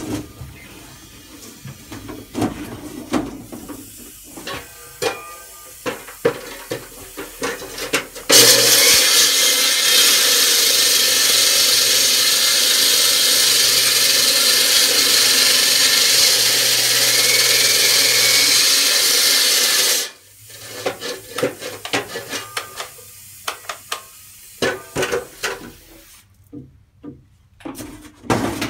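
Electric saw cutting into a concrete basement floor: it starts abruptly about eight seconds in, runs loud and steady for about twelve seconds, then cuts out suddenly, typical of this saw tripping the breaker partway into a cut. Scattered knocks and clatter of handling before and after the cut.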